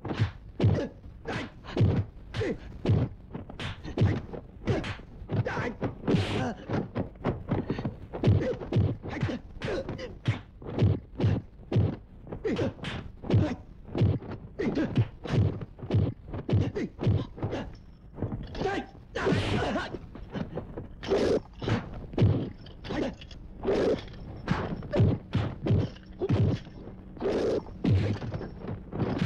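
Dubbed punch-and-kick impact sound effects of a kung fu fight, a steady stream of sharp whacks and thuds about two a second. One broader, harsher hit comes about two-thirds of the way through.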